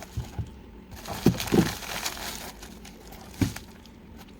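Rustling and crinkling from handling gear, likely the multi-tools and their fabric pouches, with a few light knocks and one sharper click near the end.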